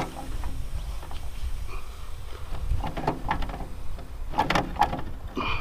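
Metal clanks and rattles from the Yanmar TC14 walking tractor's bed-former as its working depth is set and the fitting tightened back, in two short clusters about three and four and a half seconds in, over a steady low rumble; the engine is not running.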